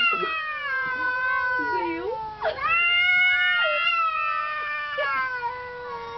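Two domestic cats yowling at each other: long, drawn-out caterwauls that slowly slide down in pitch, one ending about two seconds in and a new one rising straight after. The voices overlap at times.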